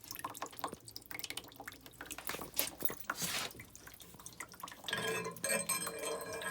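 Water dripping and trickling from disconnected water-heater piping, with scattered small clicks and knocks, and a metallic ringing in the last second and a half.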